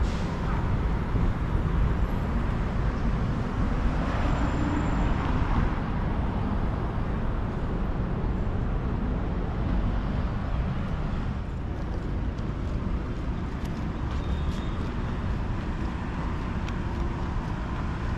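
City street traffic: a steady rumble of road noise from cars and vans on a multi-lane avenue, with one vehicle passing closer and louder about five seconds in.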